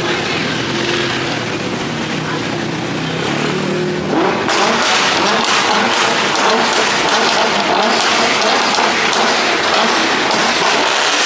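Car exhaust rumbling low and steady, then just after four seconds a hard rev with a rising note that turns into a loud, rough exhaust with sharp crackles as a car passes close by.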